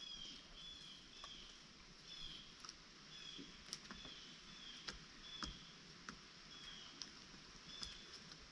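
Faint, short, high chirps from chickens, repeating irregularly about once a second, with a few sharp ticks scattered among them.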